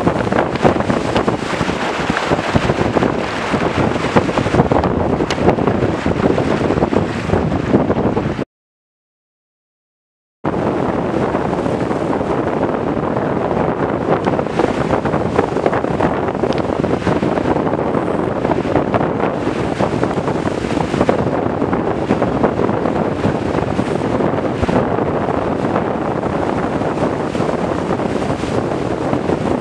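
Strong wind buffeting the microphone of a camera mounted on a small trimaran sailing fast, with water rushing and spraying off the hull. The sound cuts out completely for about two seconds around eight seconds in.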